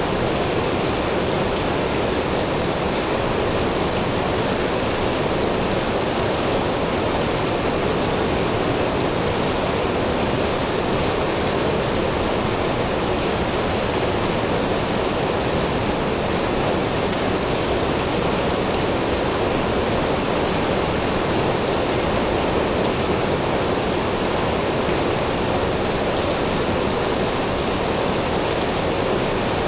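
Steady rain falling, an even rushing hiss that does not change or break.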